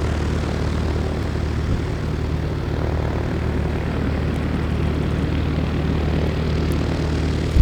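Propeller aircraft's piston engine running steadily: an even, low drone that holds its pitch, with a short click near the end.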